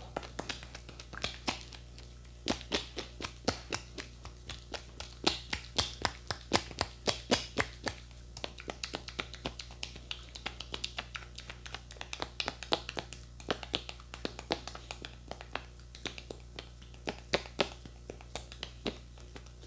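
Massage taps: a dense, irregular run of quick hand taps and pats on skin, coming fastest and loudest in a flurry near the middle.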